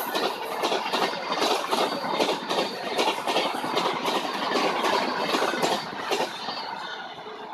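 Passenger train coaches passing at speed: a rapid, rhythmic clatter of wheels over the rails, fading away near the end as the last coach goes by.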